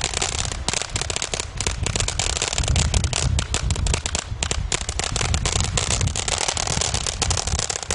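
A consumer ground fountain firework burning: a steady hiss of spraying sparks with dense, rapid crackling, over a low rumble that is strongest about three seconds in.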